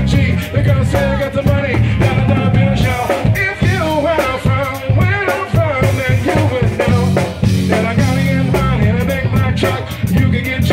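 Background music: an R&B/hip-hop song with sung vocals over a heavy bass and steady beat.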